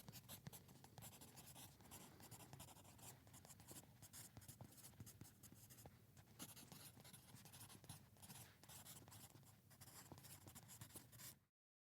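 Pencil writing on paper: a faint, continuous run of short scratching strokes that cuts off suddenly near the end.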